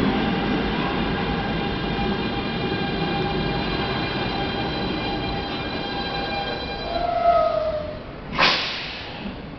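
R160 subway train slowing to a stop at a platform: its rumble fades under a steady electric whine, a short squeal comes about seven seconds in as it halts, and then a sharp burst of air hiss from the brakes dies away.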